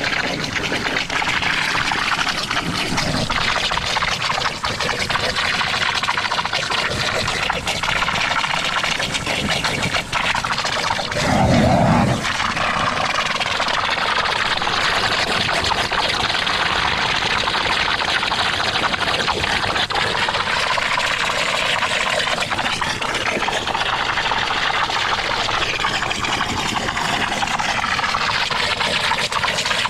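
Mud sucker running, its suction hose drawing muddy water out of a blocked drainage channel: a loud, steady rushing noise, with a louder, deeper surge lasting about a second some eleven seconds in.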